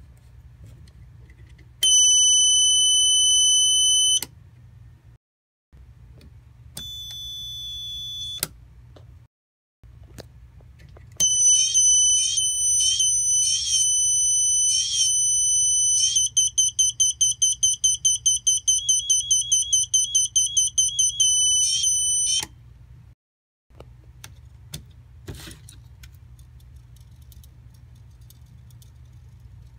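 Shrill electronic alarm tones from a Snap Circuits buzzer circuit: first a steady high beep lasting about two seconds, then a fainter, slightly higher beep. About eleven seconds in, a loud run of beeps starts and turns into a rapid pulsing of about five beeps a second, then cuts off suddenly. Near the end there are a few light plastic clicks.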